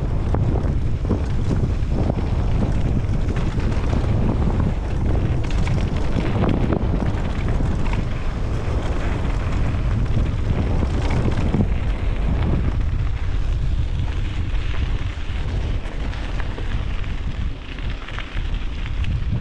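Wind buffeting the microphone of a helmet-mounted camera on a fast mountain-bike descent, over the crunch of tyres on a dry dirt trail and the knocks and rattles of the bike over bumps. The rush eases a little in the second half as the riding opens out onto flatter dirt.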